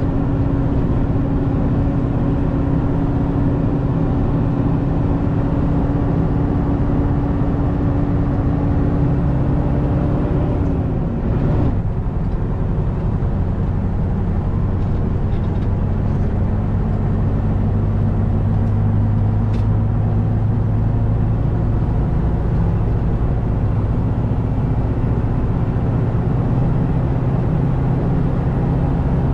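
Scania 144's V8 diesel engine running under load, heard from inside the truck cab. About eleven seconds in the engine note drops sharply, with a brief dip in loudness, then carries on at lower revs, slowly climbing.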